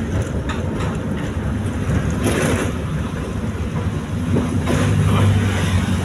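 Moving vehicle heard from inside the cab: a steady low rumble of engine and tyres on a concrete road, with brief louder swells about two seconds in and again near the end.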